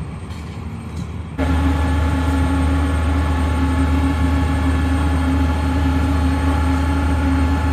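Heavy construction machinery running with a steady loud drone, a deep hum with a few steady higher tones over it, starting abruptly about a second and a half in.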